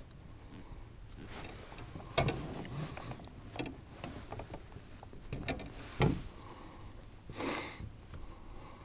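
Scattered knocks and rustles of a large catfish being handled in a plastic kayak, with a short heavy breath near the end.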